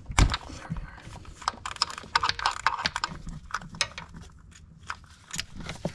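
A ratchet wrench clicking in short, irregular runs as it backs out the 10 mm bolt holding an ignition coil pack, with scattered small knocks of the tool on metal.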